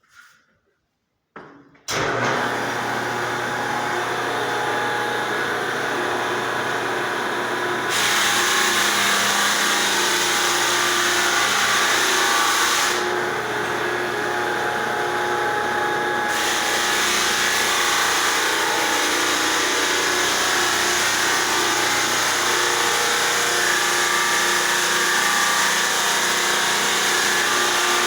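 Belt floor sander switched on about two seconds in, its motor then running steadily with a low hum. A louder grinding hiss of the coarse 36-grit sleeve on the wood floor joins about eight seconds in, drops away for a few seconds midway, then returns.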